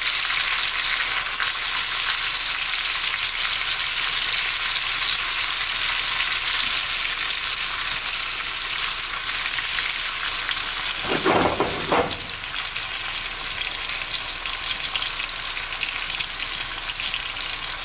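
Chicken pieces frying in hot oil with garlic and green chilies: a steady high sizzle. One brief louder sound comes about eleven seconds in, after which the sizzle runs a little quieter.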